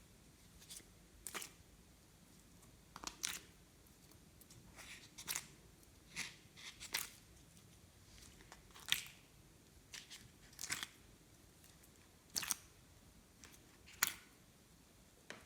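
Glossy slime being pressed and stretched by hand, giving sharp, irregular clicks and pops about once a second.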